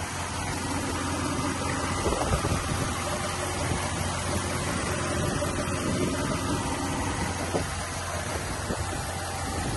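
Toyota engine, swapped into a Volga GAZ-24, idling steadily under the open bonnet.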